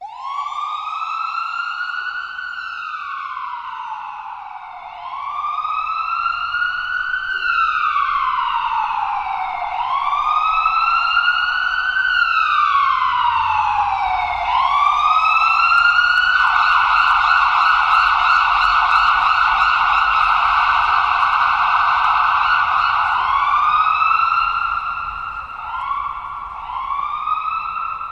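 Electronic ambulance siren. It first wails in slow sweeps, each rising and falling over about five seconds. Partway through it switches to a rapid warble, and near the end it gives several short rising whoops.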